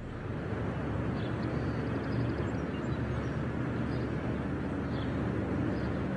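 Steady outdoor city ambience at night: an even, low rumble of distant traffic, with a few faint high chirps now and then.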